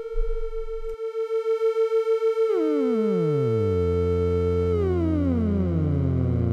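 Behringer Abacus and Make Noise Maths function generators self-cycling at audio rate as oscillators, giving a steady bright synth tone. About two and a half seconds in, one tone glides down in pitch as its rise/fall knob is turned, and the second follows about two seconds later. Both settle into a low drone.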